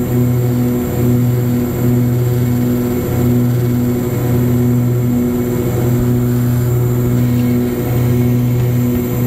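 Single-engine light airplane's engine and propeller droning steadily, heard inside the cabin on approach to a runway, the low hum throbbing at a slow, regular beat.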